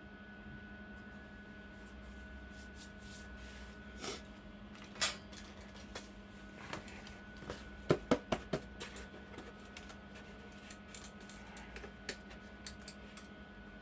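A small machine hums steadily while scattered light clicks and a few sharp knocks sound over it, the loudest knocks about five seconds in and a quick run of them about eight seconds in.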